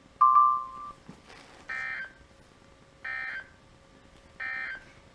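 A short, loud single-pitch beep about a quarter second in, then three identical short bursts of warbling digital data tones about 1.3 s apart: the EAS/SAME end-of-message code sent three times by NOAA Weather Radio at the close of a warning broadcast.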